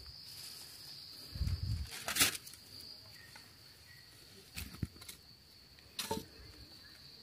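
A steady, high-pitched drone of insects such as crickets. Over it come a few short knocks and scuffs of handling in the soil, around two seconds in, again near four and a half, and once more at six seconds.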